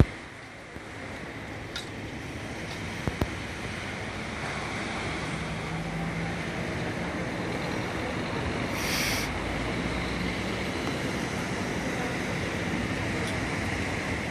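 Steady outdoor background noise from road traffic and small waves on a pebble beach, with a low engine hum passing now and then. A few light handling clicks in the first few seconds, and a short hiss about nine seconds in.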